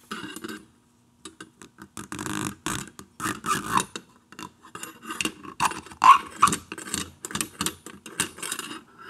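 Steel fork spring being worked down over a Triumph Tiger Cub fork tube by hand: an irregular run of metallic clicks, clinks and scrapes as the coils rub and tap on the tube.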